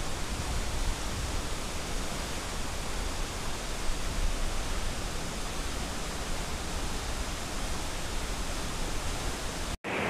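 Nungnung waterfall, a tall plunge waterfall in heavy flow, pouring into a rocky pool: a steady, even rush of falling water. It breaks off for an instant near the end.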